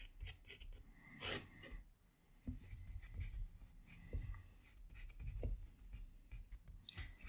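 Faint sounds of a paintbrush working on watercolour paper, with soft knocks and handling noises on the desk and a short hiss about a second in.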